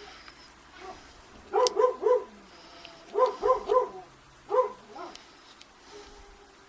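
A dog barking: seven short barks in three bursts, three, then three, then a single bark.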